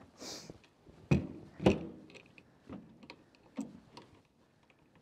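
Footsteps in snow and knocks and clicks from handling a wooden rabbit hutch's wire-mesh door and latch. Two sharp knocks about a second in are the loudest, followed by a few lighter clicks.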